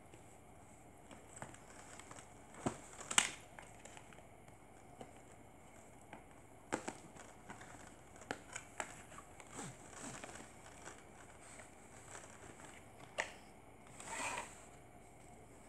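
Hands handling a cardboard box and a plastic blister pack: scattered light taps and clicks, with a short rustle near the end as a hand reaches into the box.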